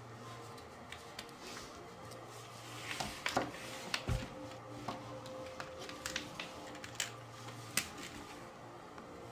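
Plastic felt-tip markers clicking and knocking against each other as they are handled and picked from a row on a table: a scatter of sharp clicks in the middle of the stretch, over a faint steady hum.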